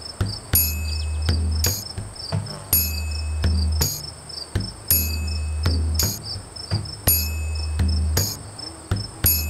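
Crickets chirring steadily and high, over a repeating rhythm of a low drum-like tone and sharp taps that comes round about every two seconds, like a looped backing track.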